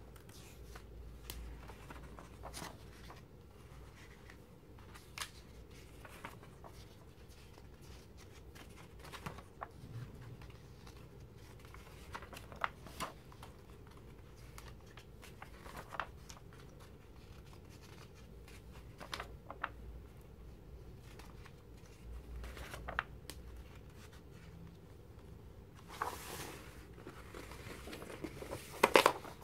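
Magazine pages being turned by hand: scattered soft paper rustles and light taps, with louder rustling as a large page is flipped over near the end.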